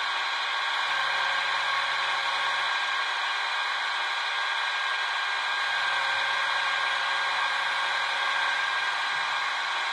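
H0-scale Roco EDK 750 model railway crane in operation, its boom being lowered, with a steady mechanical whirring throughout. A low hum comes in twice, about a second in for under two seconds and again from about six seconds in until near the end.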